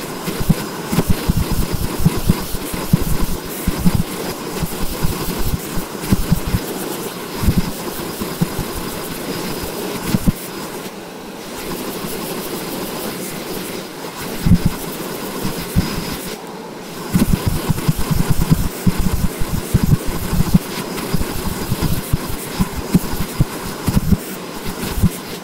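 Handheld hair dryer blowing during a blow-dry, a steady airy rush with a faint high whine, and irregular low buffeting as the airflow hits the microphone. The noise drops briefly about eleven and sixteen seconds in.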